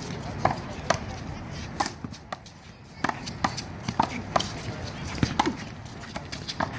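Handball rally: a string of sharp slaps as a small rubber handball is struck by hand and bounces off the wall and court, about one or two a second, with a short lull around two to three seconds in.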